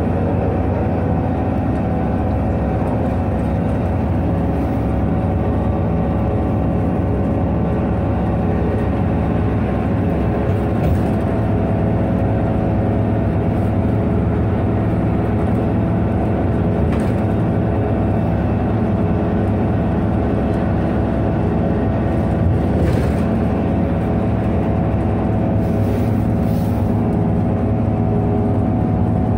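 Irisbus Citelis 18 articulated bus's Iveco Cursor 8 diesel engine running at a steady pitch, with no revving.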